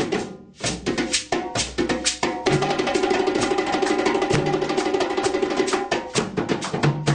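A group playing percussion-heavy music: fast, dense drum and wood-block-like strikes over low bass notes. A steady held note sounds through the middle. The playing drops briefly just after the start, then comes back in.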